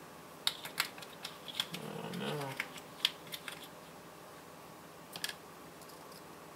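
Light, irregular clicks and faint rustling of small metal parts and a plastic parts bag being handled by hand, as ball bearings are picked out for an RC axle; the clicks come thickest in the first few seconds, then two more about five seconds in.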